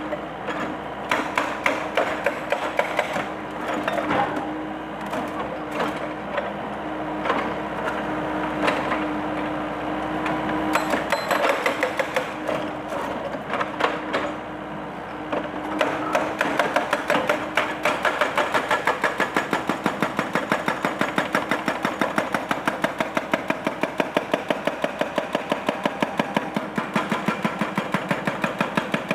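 Excavator-mounted hydraulic breaker hammering concrete. The blows come irregularly over a steady engine hum at first, then about halfway through settle into a fast, even run of strikes.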